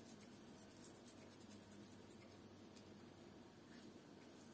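Near silence, with faint scattered light ticks and scratches of dried granulated garlic being sprinkled by hand onto halved tomatoes on dehydrator trays.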